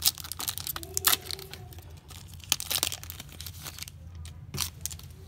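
Foil wrapper of a Topps baseball card pack being torn open and crinkling: dense crackling for about three seconds, then quieter, with one sharp tick about four and a half seconds in.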